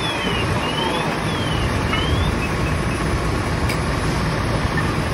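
Fire engine running nearby, a steady low rumble that grows stronger about a second and a half in. Over the first two seconds a faint high tone sweeps down and up several times.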